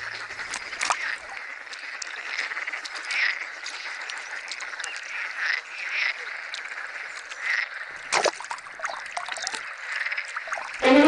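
Wetland ambience: frogs croaking in short calls at irregular intervals over a steady background hiss, with a few sharp clicks.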